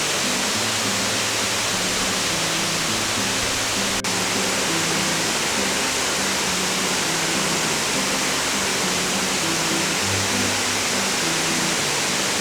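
Steady roar of Shiraito Falls, many thin streams of spring water falling close by, with soft background music carrying low bass notes underneath. A brief click and dip about four seconds in.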